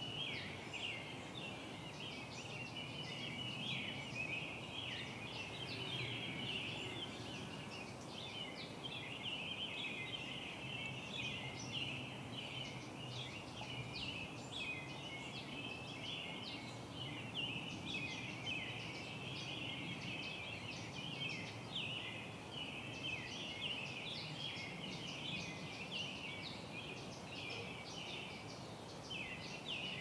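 Small birds twittering continuously: many short, high chirps overlapping with no break, over a faint low rumble.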